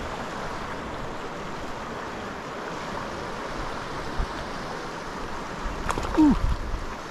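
South Platte River flowing steadily, running slightly high at around 420 cfs. Wind buffets the microphone near the end, with a brief sound falling in pitch just before it.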